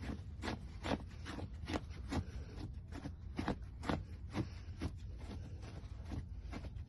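Dog pawing and scraping at its bedding on the floor, quick scratchy strokes about two a second, as it fixes its bed before lying down. A steady low hum runs underneath.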